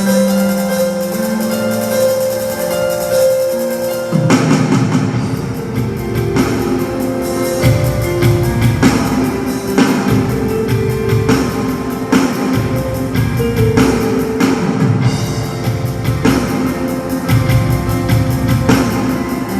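Instrumental music: held keyboard chords, then about four seconds in a drum kit comes in with a steady beat under guitar and keyboard.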